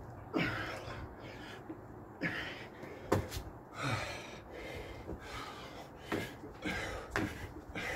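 A man breathing hard with gasps during burpees and jump squats, about one breath every second or two, with a few sharp thuds from his trainers landing on patio paving.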